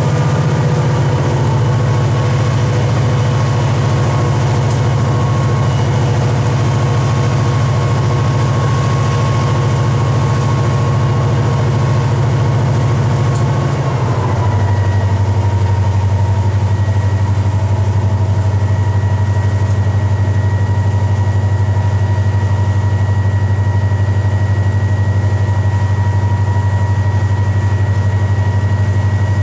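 Diesel-electric locomotive engine running steadily at idle. About halfway through, its speed drops a step and settles at a lower note, with a faint steady whine above the engine.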